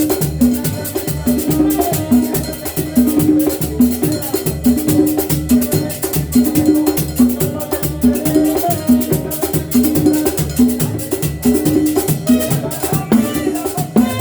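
Upbeat Latin dance music with a steady, repeating beat and hand percussion.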